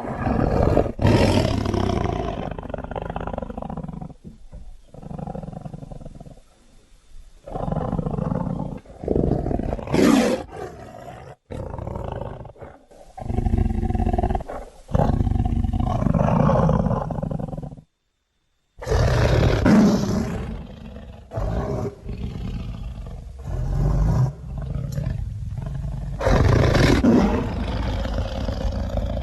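Designed sound effects for a Smilodon (sabre-toothed cat): a string of loud big-cat roars and snarling growls played one after another, with short gaps and a couple of abrupt silent cuts between them.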